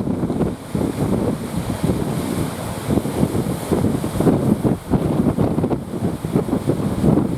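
Wind buffeting the microphone in uneven gusts, over the sea's surf.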